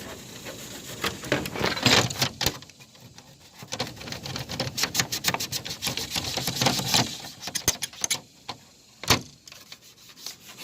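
Toothbrush scrubbing an air conditioner part, in quick rapid strokes of bristles rasping on the surface, in spells with short pauses. There is one sharper knock near the end.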